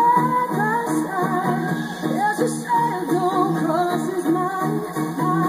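Live band playing with a woman singing the lead into a microphone, electric guitar, keyboard and drums behind her. The recording is thin, with almost no bass.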